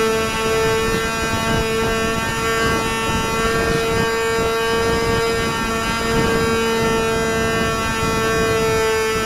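RC model airplane's motor and propeller running at a steady pitch, a constant hum with many overtones, heard from a camera mounted on the plane, with wind buffeting the microphone.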